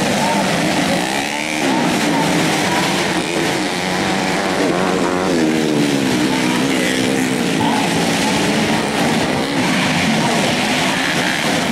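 Modified 125 cc four-stroke race motorcycle engines revving on a dirt track, their pitch rising and falling as they accelerate and shift, with more than one engine heard at once.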